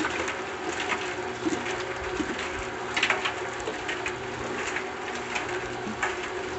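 Concrete mixer running with a steady hum, with short scrapes and knocks of wet concrete being shovelled and spread; the loudest scrape comes about three seconds in.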